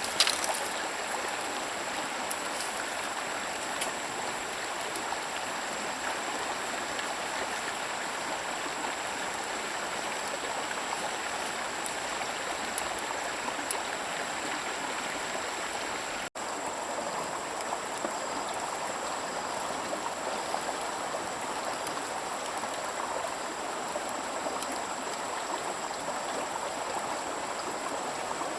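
Stream water running steadily, with a faint steady high tone above it. The sound drops out for a moment about halfway through.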